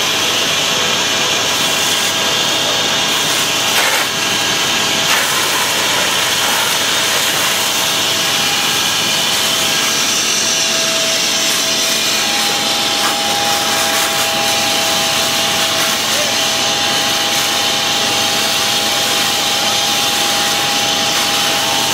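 Steady, loud rushing noise at a working house fire: hose streams spraying and fire engine pumps running. A faint, steady high whine joins about twelve seconds in.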